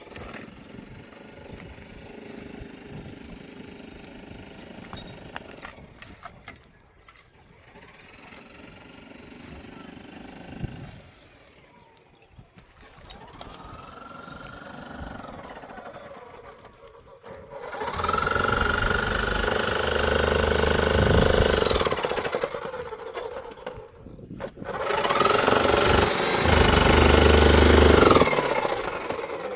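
A motor-driven machine that speeds up to a steady high whine, runs a few seconds and winds down, twice in the second half, over a low rumble. Fainter machine sounds run before that.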